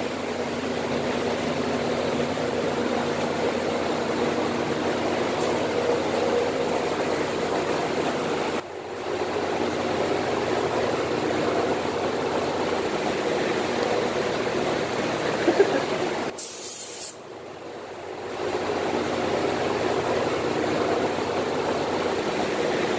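Shop heater blower running: a steady blowing noise with a low hum. It breaks off briefly about nine seconds in and again about sixteen seconds in.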